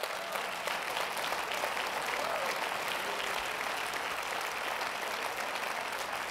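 Church congregation applauding steadily, with faint voices calling out in the crowd.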